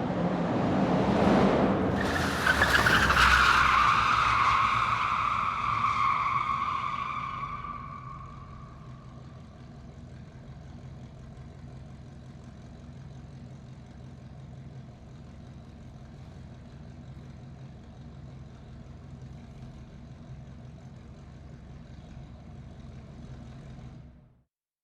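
Muscle car engine surging loudly as its tyres squeal, the squeal sliding slowly down in pitch over several seconds. It then settles into a steady low idle that cuts off suddenly near the end.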